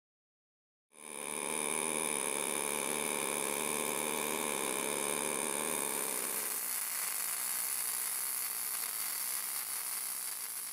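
MIG/MAG welding arc burning steadily: an even buzzing hiss that starts about a second in, its lower part thinning out about two-thirds through.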